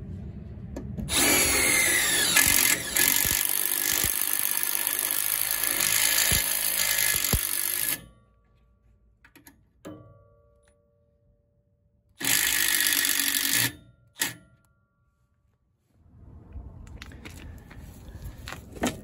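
Milwaukee cordless drill driving self-tapping hex-head screws into the steel trailer frame. One long run of about seven seconds, then a second, shorter run about twelve seconds in, with a brief blip just after it.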